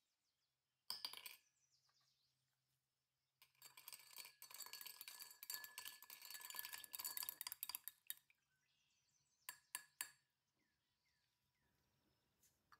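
Small hard objects clinking: a single sharp knock about a second in, then a dense run of rapid clinks and rattles lasting about four seconds, and two or three more clicks near the end.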